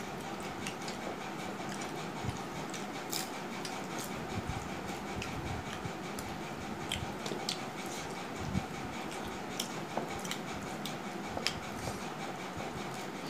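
Eating sounds: scattered soft clicks of chewing and mouth smacks, and fingers mixing rice on steel plates, over a steady background hiss.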